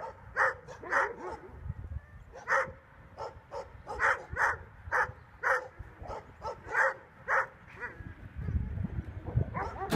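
A dog barking repeatedly: short single barks, often about half a second apart, with brief pauses between groups. A low rumble comes in for the last couple of seconds.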